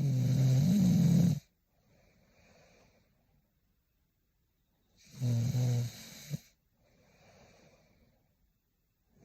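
A sleeping woman snoring: two loud, rasping snores about five seconds apart, each followed by a softer, quieter breath, with the next snore starting near the end.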